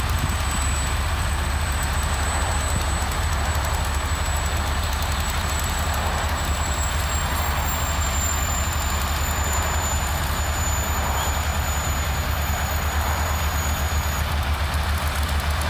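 Crane truck's heavy diesel engine running steadily, with a deep rumble and a faint high whine that slowly drops in pitch.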